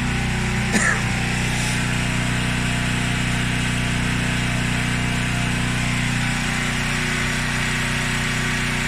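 Front-load washing machine running its drain-and-spin cycle: a steady electric motor hum with a short click just under a second in. One of the low hum tones drops away about six seconds in.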